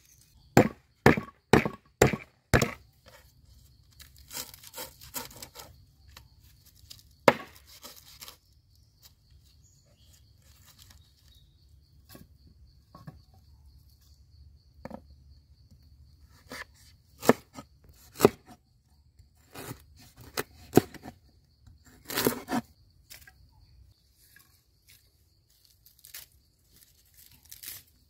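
Kitchen knife chopping on a wooden cutting board: a quick run of about five sharp strikes just after the start, then single strikes later. Between the strikes, fresh herbs and leaves rustle and tear as they are picked and torn by hand.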